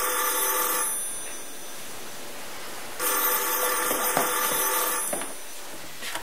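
Corded desk telephone ringing in the standard two-seconds-on, four-seconds-off cadence: a ring already sounding cuts off about a second in, and a second ring of about two seconds starts about three seconds in.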